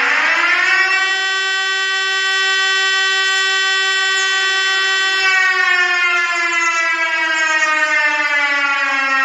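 Mock Emergency Alert System alarm tone: a loud siren-like wail rich in overtones. It rises quickly in pitch at the start, holds steady, then slowly falls from about halfway through.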